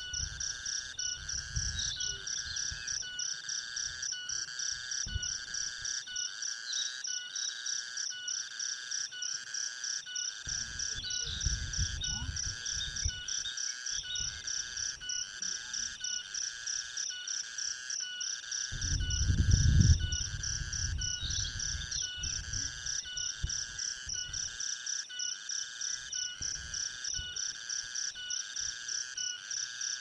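A steady chorus of calling insects, pulsing evenly with a few bird chirps over it. Low rumbling noise comes and goes three times, loudest about two-thirds of the way through.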